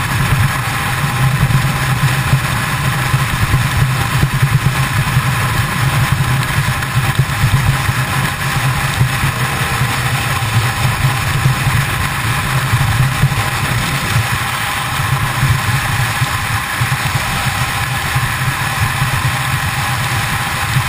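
Kawasaki ZX-10R's inline-four engine running at a steady cruise at highway speed, mixed with heavy wind rush on the microphone. The engine note holds steady, with no revving up or down.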